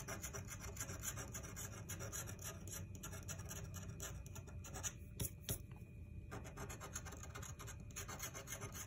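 A coin scratching the coating off a scratch-off lottery ticket in rapid back-and-forth strokes, easing off briefly about five seconds in, with a couple of sharp ticks.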